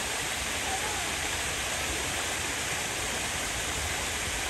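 Steady rush of water spilling over a low concrete wall.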